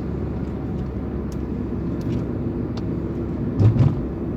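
Steady engine and road noise inside the cabin of a moving Chevrolet Estate wagon, with one short low thump about three and a half seconds in.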